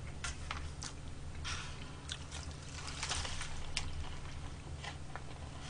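Cold noodle broth poured from a small ceramic bowl into a bowl of naengmyeon noodles, a trickling splash lasting a couple of seconds. Chopsticks click lightly against the bowls a few times.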